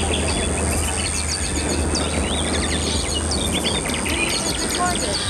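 Recorded birdsong and insects played through outdoor loudspeakers as a live mix: many quick overlapping bird chirps, a steady high insect tone, and an even wash of background noise underneath.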